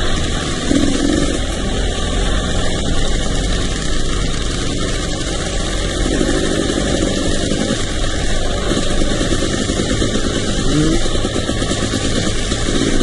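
ATV engine running under way on a dirt trail, its revs rising and falling several times as it is throttled up and eased off.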